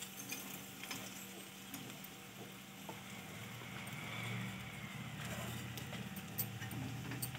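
Soaked sago pearls tipped into a hot steel kadhai of frying potato, with faint sizzling and a few light taps.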